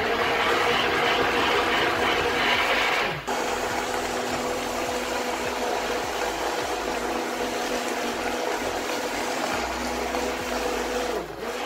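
Immersion blender running in a stainless steel bowl of lemon cream, blending in cold butter: a steady motor whine over an even noisy swish, cutting out for a moment about three seconds in and again near the end.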